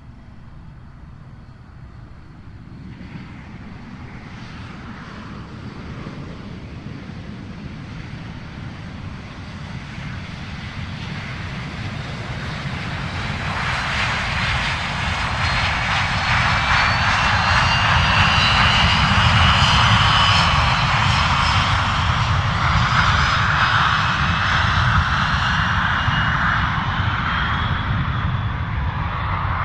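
Jet aircraft engine, with a rumble and rushing noise growing steadily louder over about fifteen seconds and then holding near its loudest. A high whine comes in as it gets loud.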